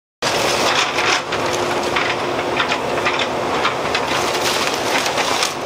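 JCB backhoe loader's bucket crushing wood-and-metal arcade gambling cabinets, a dense run of cracking and crunching as the panels splinter and break, over the machine's running engine.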